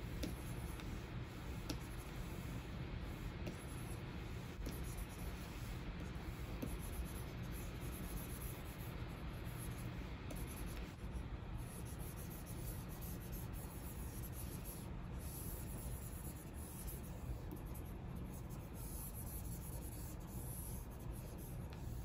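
Stylus nib of a Wacom Cintiq 24 Pro scratching and rubbing across the pen display's etched glass in continuous sketching strokes, with a few faint taps of the pen on the screen.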